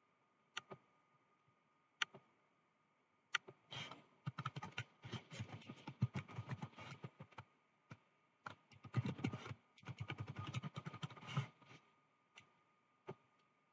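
Typing on a computer keyboard: a few single clicks, then two quick runs of keystrokes as a command and then a password are typed, then a couple more single clicks.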